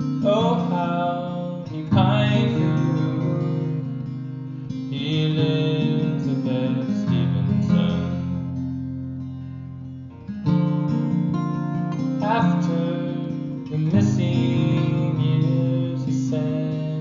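Music: a song with strummed acoustic guitar.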